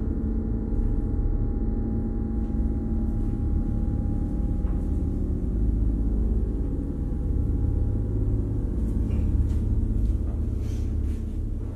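Low, steady drone of several held tones, an eerie ambient music bed, with a few faint ticks in the second half.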